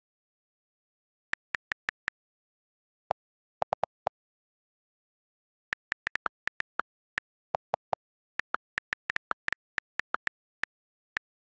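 iPhone on-screen keyboard key-click sounds while text is typed: short clicks in irregular runs, sometimes several a second, with dead silence between. A few of the clicks are lower and duller than the rest.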